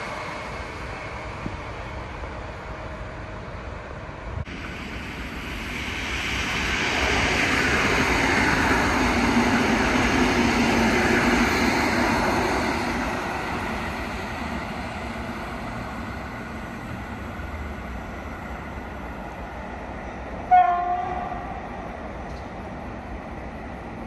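A yellow-and-blue electric commuter multiple unit passing along the tracks: wheel and motor noise swells, holds for a few seconds, then fades away. Near the end a single brief, loud horn blast sounds.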